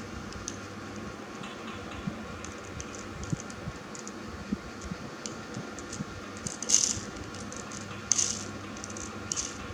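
Light clicks and rattles over a steady hum, with three louder sharp clicks in the second half.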